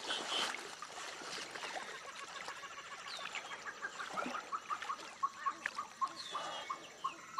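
Birds calling: one repeats a short note about four times a second from about two seconds in, over scattered higher chirps from other birds.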